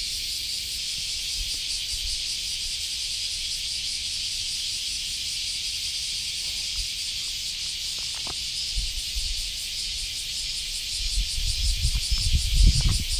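A steady insect chorus chirring high-pitched throughout, with low rustling and thudding sounds coming in near the end.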